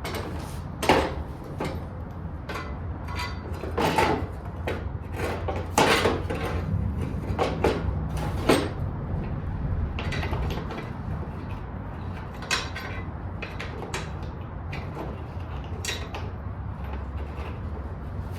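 Hand tools and metal mower parts knocking and clanking at irregular intervals while bolts are fitted, over a steady low hum.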